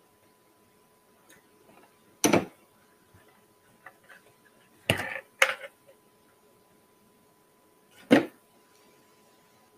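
Small tools and parts being handled and set down on a workbench while a tiny speaker is wired: four sharp knocks, with faint handling noises between them.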